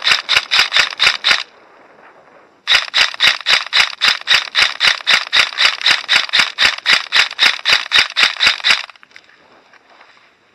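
Airsoft gun firing in two long strings of rapid shots, about six a second, each shot a sharp mechanical clack; the first string stops about a second and a half in, and the second starts a second later and runs about six seconds.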